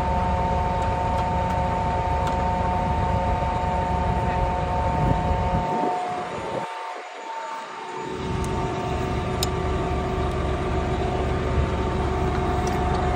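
Tractor engine running steadily over a low rumble. The rumble drops away for a moment about halfway through, and a couple of faint clicks follow.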